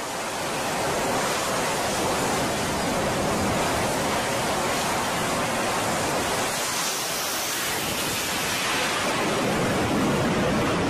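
Twin jet engines of an F/A-18 Hornet running at full power for a carrier catapult launch, a steady, even rush of noise. The jet is shot off the catapult partway through, with the noise carrying on unbroken.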